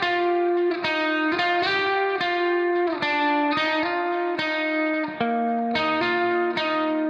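Background music: a melody of single plucked guitar notes, a new note about every half second, each ringing on until the next.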